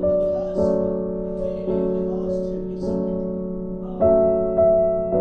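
Slow piano music: chords struck about once a second and left to ring out.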